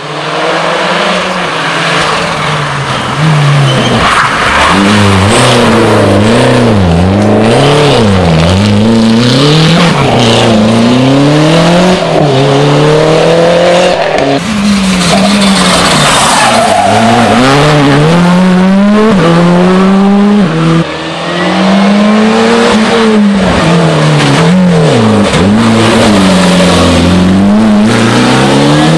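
Rally car engines revving hard, rising and falling repeatedly as they change gear, with tyre squeal. The sound breaks off about halfway through and another car's engine takes over.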